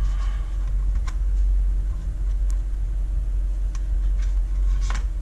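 Steady low mechanical hum with a faint steady tone above it, and a few light clicks and rustles from hands handling adhesive tape.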